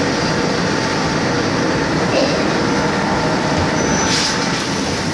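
Macpower Mono 300 CNC lathe running with a steady mechanical noise, a few faint steady whines in it, and a short hiss about four seconds in.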